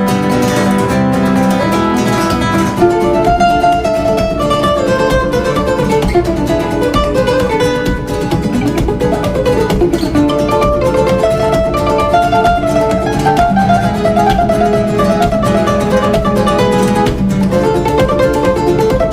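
Background music led by plucked acoustic guitar, playing a moving melody over sustained chords.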